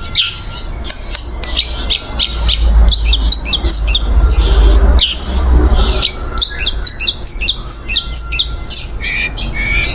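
Long-tailed shrike (cendet) singing a fast, varied run of short high chirps and squawky notes, with a low rumble on the microphone through the middle of the stretch.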